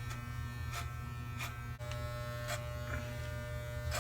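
Electric hair clippers buzzing steadily as they run through hair, with a few brief clicks.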